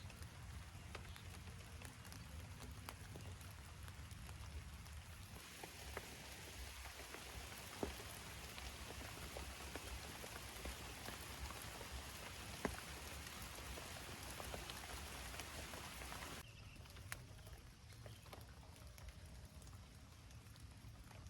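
Rain falling steadily, with a few single drops or taps standing out. The rain hiss grows louder about five seconds in and drops back suddenly near the end.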